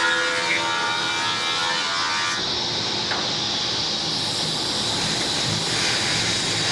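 Straight-line rip saw running with a steady hiss and a constant high tone. Background music with held notes carries on over it and stops abruptly about two seconds in.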